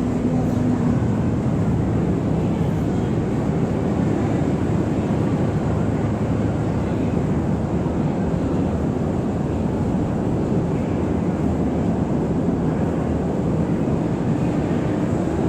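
River ferry's engine running steadily: a constant loud drone with no change in speed.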